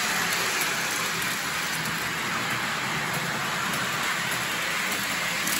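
O-scale model train running around its track loop: a steady, even rushing rattle of the locomotive's electric motor and the wheels on the track.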